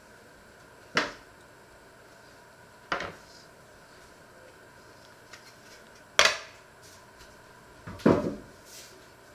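Metal kitchenware knocking on a wooden worktop: single sharp knocks about one and three seconds in, then louder clattering about six and eight seconds in as a metal baking tray is handled.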